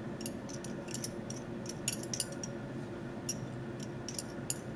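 Light, irregular clicks and clinks of laboratory glassware being handled: a glass test tube taken from a plastic rack and a dropper or glass stirring rod tapping against it, over a faint steady hum.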